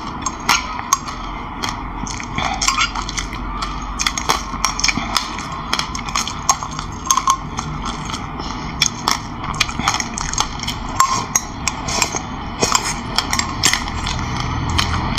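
Metal spoon clinking and scraping against a glass bowl, with dense, irregular crackling crunches of dry sesame seeds being chewed close to the microphone.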